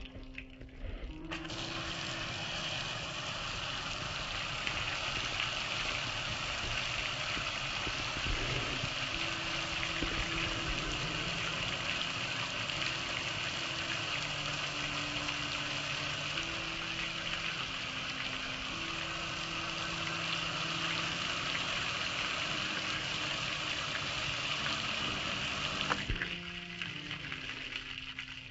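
Water spraying onto a soapy metal gas grill and running off it: a steady hiss that starts about a second in and cuts off shortly before the end.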